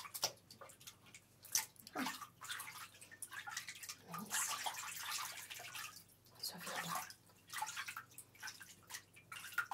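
Water splashing and dripping in irregular bursts as hair is washed at a salon wash basin.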